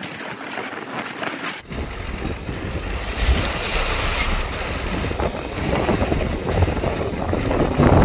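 A large bus's engine running close by: a deep, steady rumble that sets in suddenly about a second and a half in.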